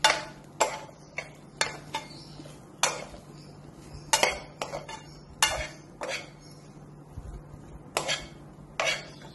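A metal spoon clinking and scraping against a nonstick frying pan while stirring a chicken and potato masala, mixing in tomato and soy sauce: about a dozen irregular knocks, over a steady low hum.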